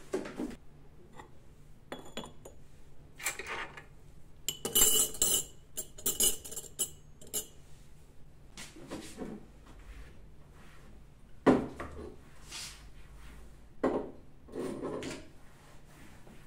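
Glass cups and metal teaspoons clinking and rattling as they are handled and set down on a shelf. The clatters come in separate bursts, the busiest a few seconds in, with a couple of sharper knocks later.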